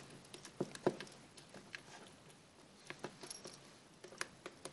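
Homemade slime being squished and pressed by hand, giving faint, irregular little sticky clicks and pops.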